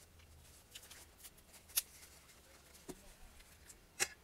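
Small plastic sauce packet crinkling and crackling in the hands as it is squeezed out, a few sharp crinkles, the loudest pair near the end.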